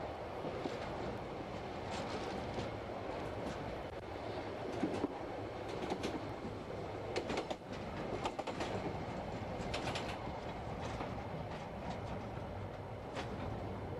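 Narrow-gauge island railway train running along the track: a steady rumble of wheels on rails, with irregular clicks as the wheels pass over rail joints.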